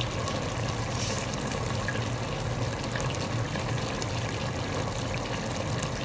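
Chicken in a green masala sauce simmering in an open steel pot: a steady bubbling and sizzling over a low hum.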